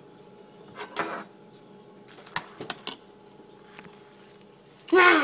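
Metal spoon clinking against a cereal bowl a few times, then a short, loud vocal sound right at the end.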